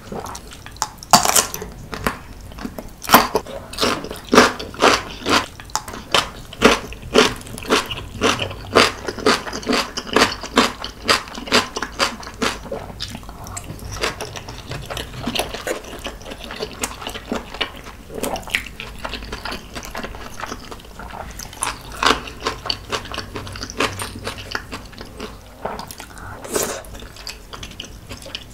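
Close-miked crunchy chewing of ponytail radish kimchi: many sharp crunches, about two or three a second at first, becoming softer and sparser about halfway through.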